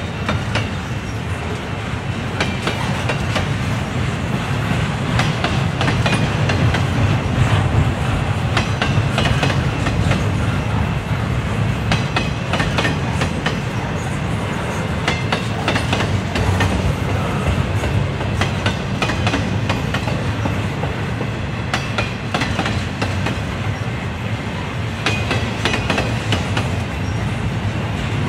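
Double-stack intermodal well cars loaded with shipping containers rolling past slowly. A steady low rumble is broken by many irregular clicks and clanks from the wheels and car connections.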